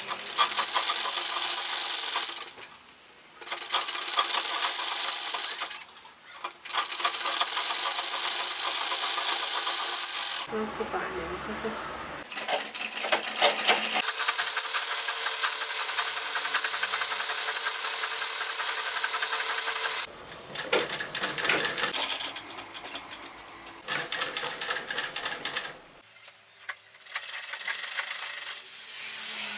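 Black straight-stitch sewing machine stitching cotton fabric, running in stretches of a few seconds with short stops between them as the cloth is repositioned.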